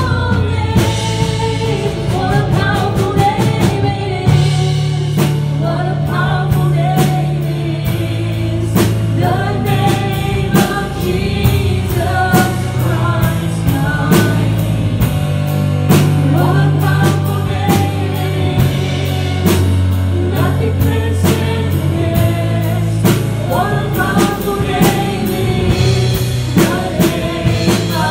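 Live worship band playing a gospel song: a woman and a man singing over a Roland keyboard, with sustained low notes and a steady drum-kit beat.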